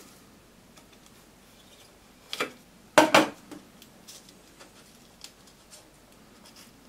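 Metal parts of a cigarette-tube stuffing machine clicking and rattling as they are handled by hand. There is a sharp clatter about two and a half seconds in and a louder burst of clicks and rattle about three seconds in, with a few light ticks after.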